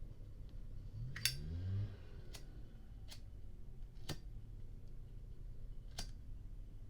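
Zippo windproof lighter's hinged metal lid and case clicking as it is handled: five sharp, separate metallic clicks spread over several seconds, with a short low rumble about a second in.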